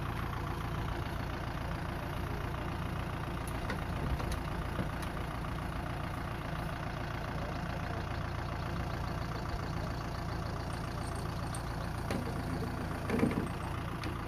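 Diesel tractor engine idling steadily, with a couple of short louder sounds near the end.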